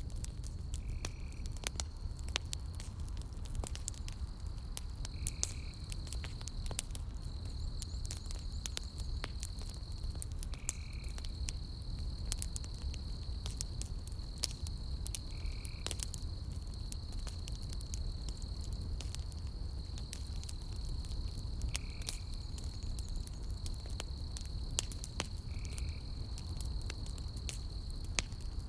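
Campfire of burning logs crackling, with sharp irregular pops over a low steady rumble. A continuous high insect trill runs behind it, and a short chirp repeats every five seconds or so.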